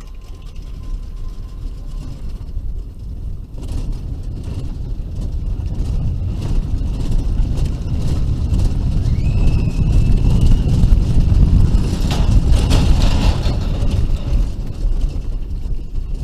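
Bobsled roller coaster car running down its open trough, heard from a camera riding on it: a low rumble of wheels and wind that builds over the first few seconds, is loudest a little past the middle as the car banks through a turn, and then eases. About nine seconds in there is a brief high whine.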